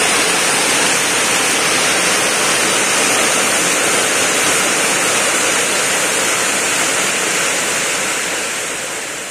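A steady loud hiss of food cooking on the stove as a pot of yellow rice cooks and is stirred. It eases off slightly near the end.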